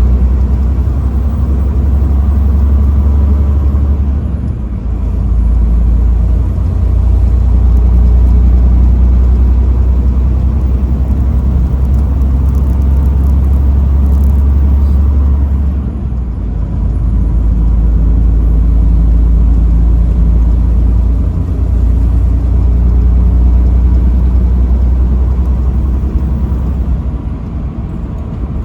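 Truck engine and road noise while driving, a loud steady deep rumble that eases briefly three times, about four seconds in, around sixteen seconds and near the end.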